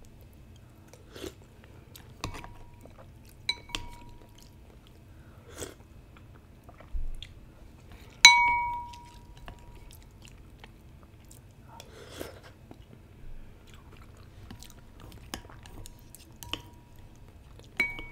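Chopsticks and a soup spoon clinking against a ceramic noodle bowl as the noodles are stirred in broth: a few scattered taps, some leaving the bowl briefly ringing, the loudest about eight seconds in, with soft wet stirring noises between.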